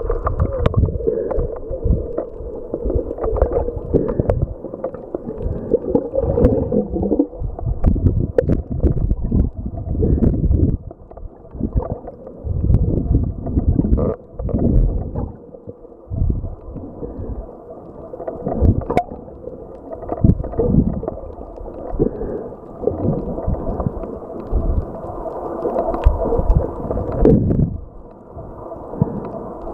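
Muffled underwater rush and gurgle of water against a camera housing as a swimmer moves, swelling and fading every second or two, with a few sharp clicks and a faint steady hum.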